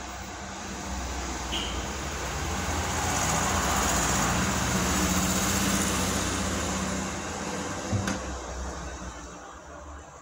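A motor vehicle's engine rumble and road noise swelling over a few seconds and fading again, as it passes by. There is a single sharp click near the end.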